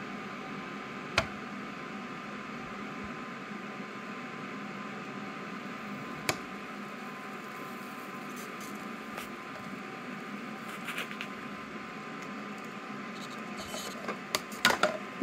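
Steady hum and hiss from a soldering gun heating a corroded push-tab battery terminal, with the bench fume extractor running. A sharp click about a second in and another near the middle, then a quick cluster of clicks and snaps near the end as the pliers work the corroded terminal and it breaks.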